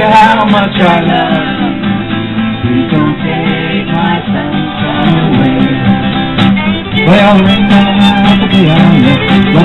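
A small acoustic band playing a folk song: strummed acoustic guitar and fiddle, with a man and women singing.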